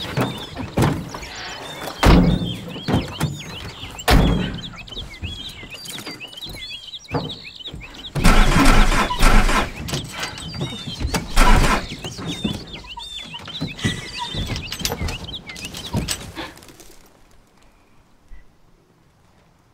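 Birds chirping over a series of heavy thuds and crashes, with a loud dense burst about eight seconds in and another a few seconds later. The sound falls away to quiet about three seconds before the end.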